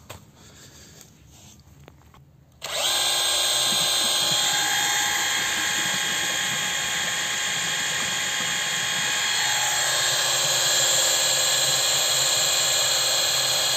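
Bosch cordless drill spinning up about three seconds in and then running steadily at speed, driving a Gardena drill-powered pump that lifts water from a well. A high motor whine with several steady tones over a hiss.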